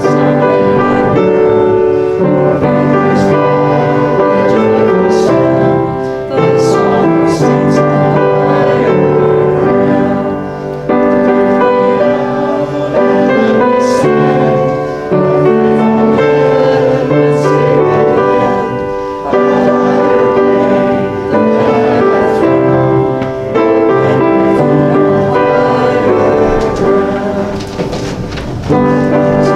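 A congregation singing a hymn to piano accompaniment, line by line with brief dips between phrases.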